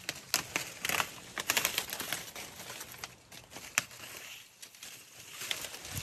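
Cherimoya leaves being snapped off the branches by hand in end-of-season stripping: irregular crisp snaps and leafy rustles, several coming in quick clusters.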